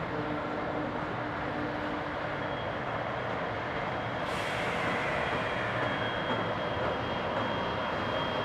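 Train running on the rail line, a steady rumble of wheels and motors with a faint high whine. About four seconds in it turns hissier.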